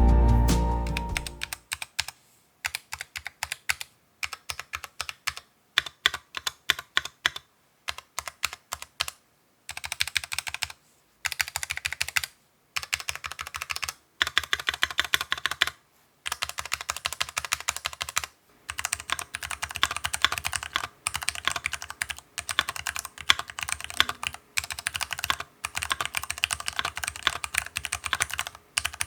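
Typing on an Archon FX2 full-aluminium mechanical keyboard with lubed Cherry MX Brown switches and silicone dampening fitted under the plate and in the bottom case. Slow single keystrokes at first, then fast continuous typing from about ten seconds in, with short pauses.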